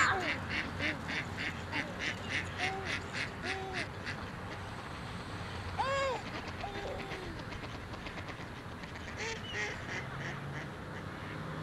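Mallard ducks quacking: a fast run of quacks, about three a second, fading away over the first four seconds, then a few more quacks near the end. A single louder rising-and-falling call stands out about six seconds in.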